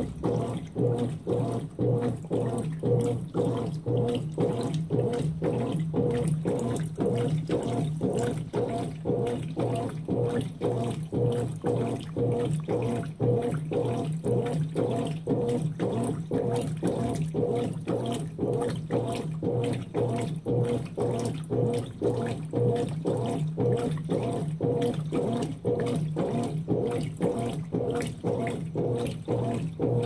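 Consul 16 kg top-load washing machine agitating clothes in a full drum of water during the softener rinse: rhythmic, even-paced sloshing of water over a steady motor hum.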